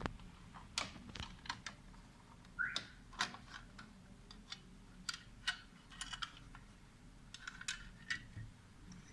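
Irregular small clicks and taps of hands handling an Intel NUC mini PC's case and small parts during a RAM and SSD install, with one short squeak about two and a half seconds in.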